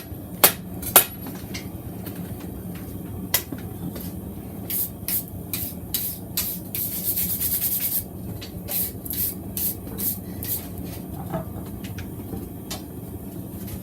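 Hammer blows on a hot steel knife blank on an anvil, straightening it: two loud strikes near the start, then runs of lighter, quicker taps. A steady hum runs underneath, and there is a hiss of about a second in the middle.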